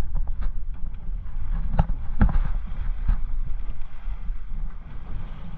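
Low wind rumble on the microphone aboard a small fishing boat, with three sharp knocks about two to three seconds in.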